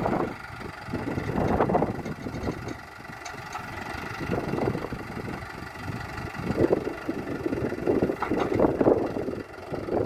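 Mahindra Arjun NOVO 605 Di tractor's diesel engine running steadily while it powers the Essey backhoe digging soil, the sound swelling and easing several times as the arm works.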